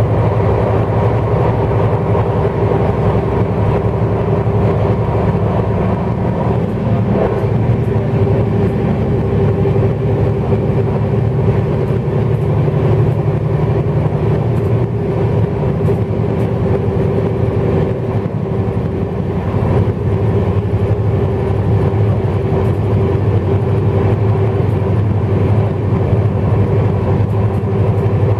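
Shatabdi Express running at speed, heard from inside a passenger coach: a continuous rumble of wheels on rail with a steady hum over it.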